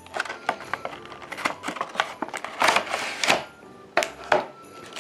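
Stiff clear plastic blister packaging being pulled open and handled: a run of sharp clicks and crackles, loudest in a burst of crinkling about halfway through.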